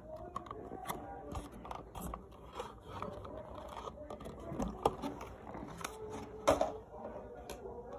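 Plastic toy playset pieces being handled and fitted together: scattered small clicks, taps and scrapes, with two sharper clicks about five and six and a half seconds in.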